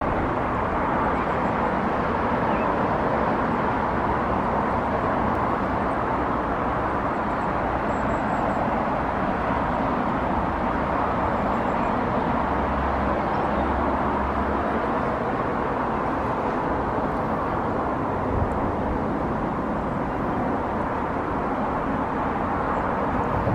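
Steady outdoor rushing noise with no distinct events, even in level throughout.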